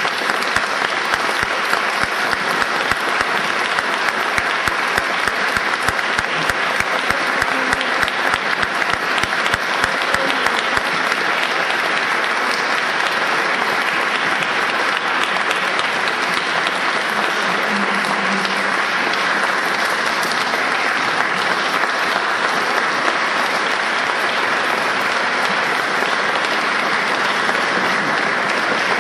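Audience applauding steadily and at length, a dense, even sound of many hands clapping.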